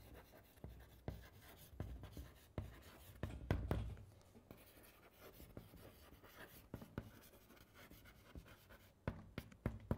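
Someone writing: faint, irregular scratches and taps of pen strokes, busiest in the first few seconds and again near the end.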